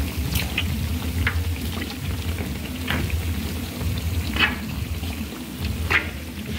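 Hot oil sizzling as bosragh pastries deep-fry in a large pot, with a few sharp crackles spread through and a steady low rumble underneath.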